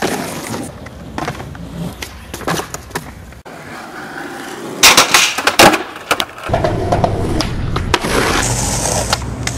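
Skateboard sounds: wheels rolling on pavement and the board clacking against the ground, with a cluster of loud, sharp clacks about five seconds in. From about six and a half seconds on, the steady rumble of wheels rolling on rough asphalt.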